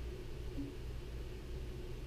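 Steady low hum of room background noise, with no distinct event.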